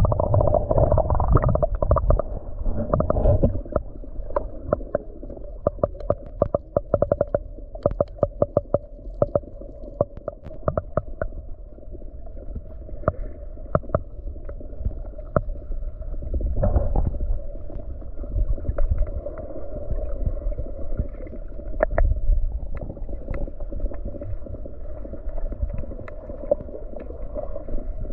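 Muffled water sound: a steady low rumble and surge with many sharp clicks and crackles, a dense run of them a few seconds in, as heard by a camera in or at the water among the feeding fish and rocks.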